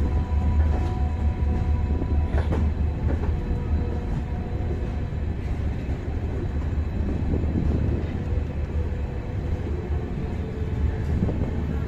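Passenger train coaches rolling slowly into a station, heard from an open coach door: a steady low rumble of wheels on rail, with a few sharp clacks over rail joints about two and a half seconds in.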